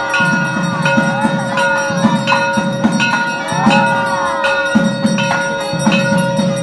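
A bell struck in a steady rhythm, about once every 0.7 s, each strike ringing on, over a held ringing tone. A crowd of voices shouts and calls over it.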